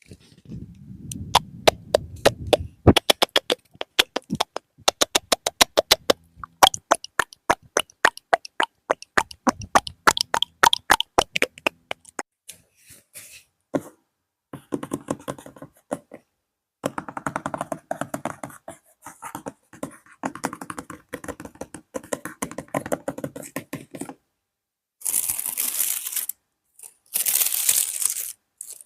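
Close-up ASMR tapping and scratching. Rapid sharp taps, several a second, fill the first half. These give way to scratchy rustling, and near the end come a few bursts of hiss, each about a second long.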